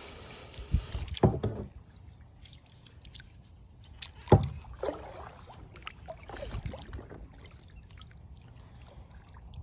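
A kayak being paddled: water sloshing against the hull, with a few irregular dull knocks of the paddle or gear against the kayak, the loudest about a second in and again about four seconds in.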